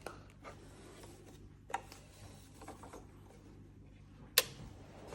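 Faint room noise with a low hum, broken by a few light clicks and one short, sharp click about four seconds in.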